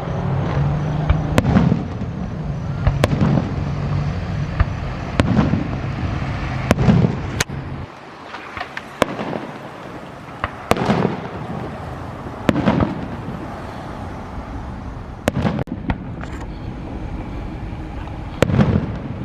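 Aerial fireworks bursting overhead, a sharp bang every second or two, some followed by a crackling tail.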